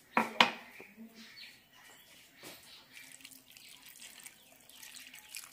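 Water being poured from a glass jug onto chopped vegetables in a pressure cooker, with two sharp knocks near the start.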